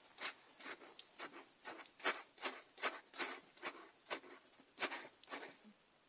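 Persian cat snorting and sniffling with her nose down at a sheet of paper: quick short sniffs, about two or three a second, that stop shortly before the end.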